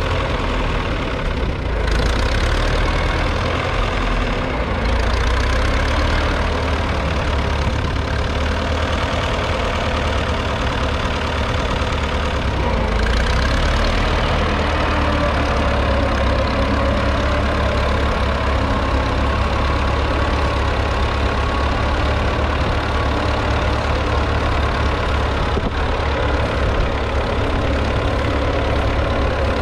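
1942 Fordson Model N's 4.4-litre four-cylinder petrol/TVO engine running steadily under load, pulling a two-furrow trailed plough through the soil.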